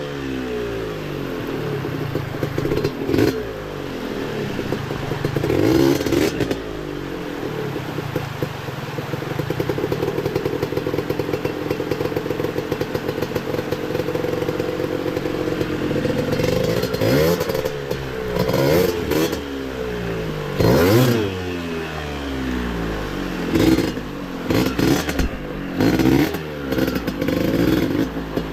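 Yamaha DT125's single-cylinder two-stroke engine running under constantly changing throttle, its note rising and falling. It holds steadier through the middle, then gets several sharp revs later on.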